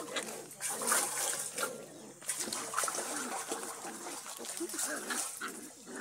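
Hands scrubbing and splashing water inside a clay water pot, in short repeated strokes, with a dog's voice heard at times.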